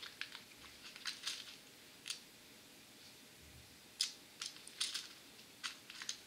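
Light plastic clicks and taps from a round clear plastic tackle box as a compartment lid is worked open and small fishing snaps are picked out: a handful of separate sharp clicks, the clearest about four seconds in.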